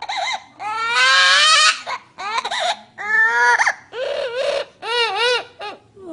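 Parrot mimicking a baby's cry: about six loud wailing sobs in quick succession, the long ones rising in pitch and the later ones wavering.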